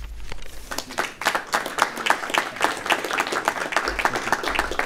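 Applause from a small group: many hands clapping at once, dense and irregular.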